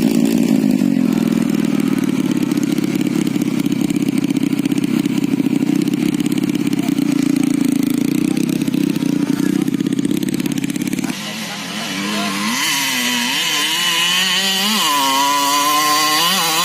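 Honda Win motorcycle fitted with a 130cc Yamaha engine, running at a steady, even speed. About eleven seconds in the engine sound cuts off abruptly and a pitched, wavering sound takes over, its notes sliding up and down.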